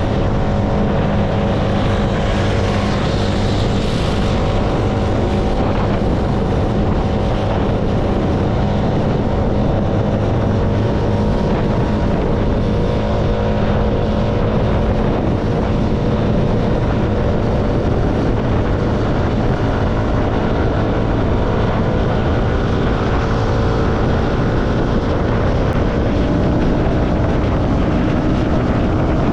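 CFMoto motorcycle engine running at a steady cruise, with road and wind noise on the microphone; near the end the engine note rises a little as it picks up speed.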